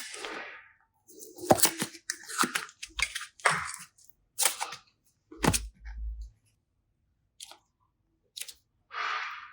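Slime and small plastic pieces being handled: irregular sharp clicks and crackling, squishy bursts, with a short hissing squish near the end.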